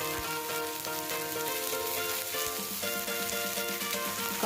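Chopped onion, capsicum, garlic, green chilli and green peas sizzling steadily in hot oil in a kadai as the masala stuffing is sautéed. Background music with held notes plays over it.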